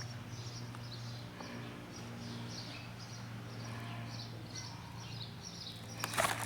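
Steady low hum of running fans, with faint high bird chirps repeating throughout. A short rustle comes about six seconds in.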